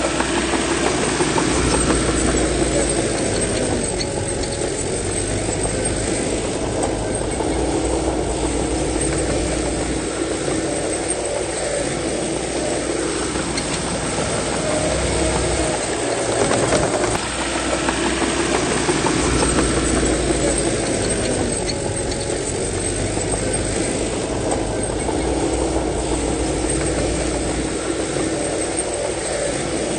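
Heavy diesel engine of a bulldozer running steadily under load, its engine note dipping and rising again every nine or ten seconds.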